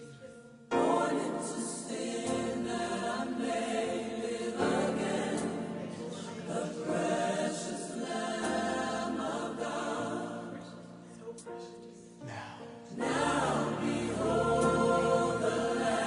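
Gospel choir singing in full harmony, coming in strongly about a second in, easing off around twelve seconds and swelling again a second later.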